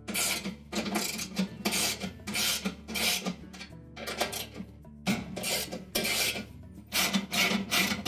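Half-inch socket ratchet loosening bolts, its pawl rasping on each back stroke in a quick back-and-forth rhythm of about two strokes a second, with a short pause about halfway through.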